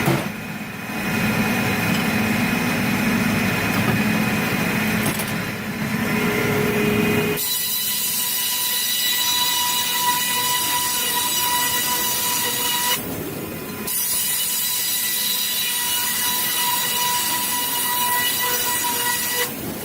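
Wood-cutting machinery running and sawing timber. A low steady drone for about seven seconds, then an abrupt change to a steady high-pitched saw whine, which breaks off briefly around thirteen seconds in and resumes.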